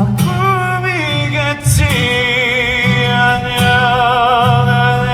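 A male singer sings a Korean pop ballad line live, settling about two seconds in into a long held note with vibrato, over acoustic guitar and drum accompaniment.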